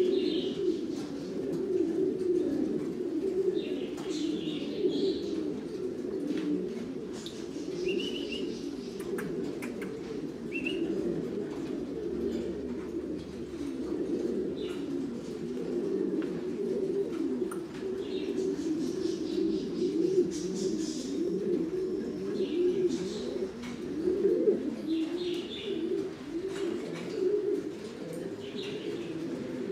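Many Buchon Gaditano pouter pigeons cooing together in a loft, a steady overlapping chorus, with short high chirps now and then.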